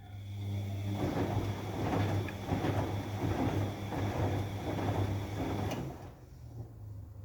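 Bosch WFD 1260 washing machine's motor turning the drum in a rinse, with a steady hum, a thin high whine and the swishing of water and laundry; it stops about six seconds in, leaving a fainter hum. The owner takes the motor for faulty.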